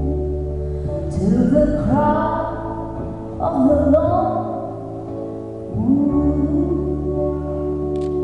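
Slow live pop song: a woman singing three long, gliding phrases over steady low held notes and band accompaniment.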